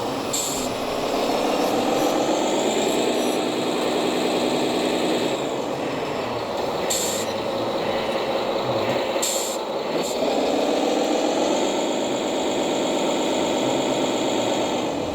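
Radio-controlled model trucks and tractors running, their motor whine rising in pitch as they speed up, holding, falling, then rising again. Three short hisses cut in, about half a second, seven seconds and nine seconds in.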